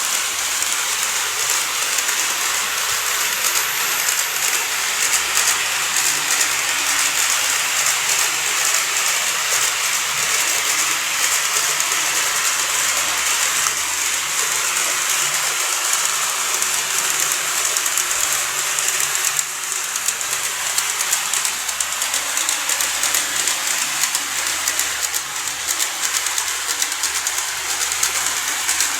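N-gauge model train running along its track: a steady high hiss of wheels on rail with fine, rapid clicking.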